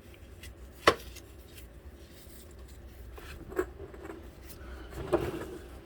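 Small clicks and light rubbing of tools and parts being handled during engine work, with one sharp click about a second in and two softer knocks later, over a faint low hum.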